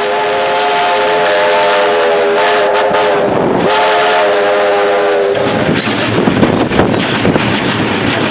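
Steam whistle of NSWGR 32 class locomotive 3237 blowing two blasts: a long one that stops about three seconds in and, after a short gap, a second of about two seconds. It sounds over the steady running and rail noise of the moving train, which carries on after the whistle stops.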